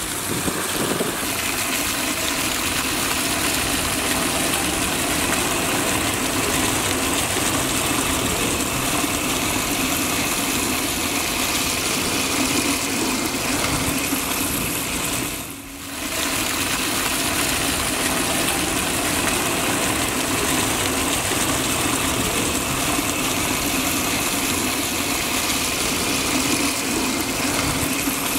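Mirano PS-150BIT automatic water pump, a 400 W electric motor, running steadily with a low hum while water gushes hard from two open taps. The flow is strong and the pressure holds constant. There is a brief dip in the sound about halfway through.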